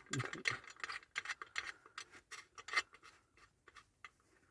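Metal parts of a multi-tool survival shovel being handled and refitted, its head turned round to the hoe position: a run of clicks, scrapes and rattles with a dull knock near the start, thinning out after about three seconds.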